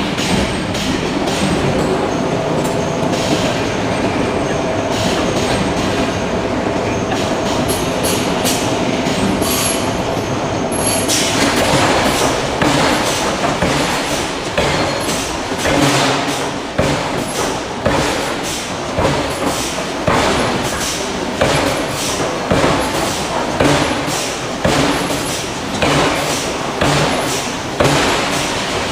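Forge-shop machinery running with a steady rumble and metallic screeching. About eleven seconds in, a hydraulic forging hammer starts striking hot steel about once a second in a steady rhythm.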